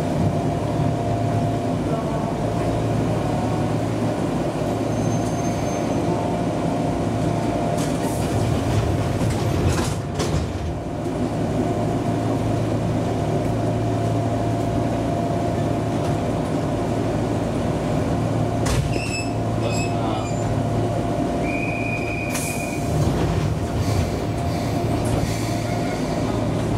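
Enshu Railway electric local train running on the rails, a steady rumble and hum from motors and wheels. Near the end there is a brief high wheel squeal.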